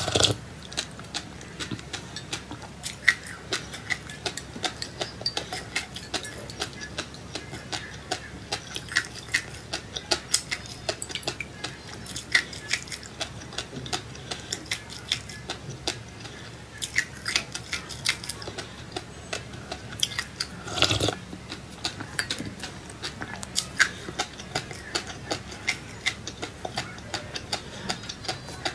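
Close-up chewing of crunchy seeds: a run of small, irregular crackling clicks, a few a second, with one louder, longer chewing sound a little over two-thirds of the way through.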